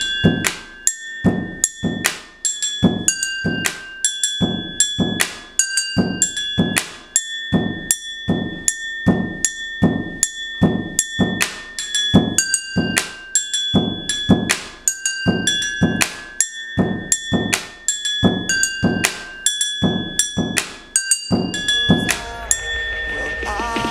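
A pen tapping a fast, even beat on a tabletop and on drinking glasses: dull knocks alternating with struck glasses that ring at several different pitches. About 21 seconds in the tapping stops and electronic music swells in.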